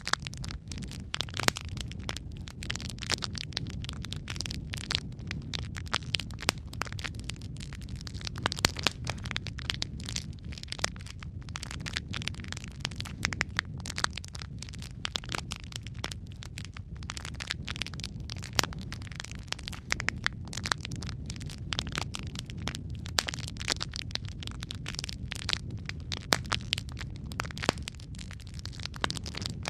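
Wood fire of burning logs crackling, with dense irregular snaps and pops over a low steady rumble of the flames.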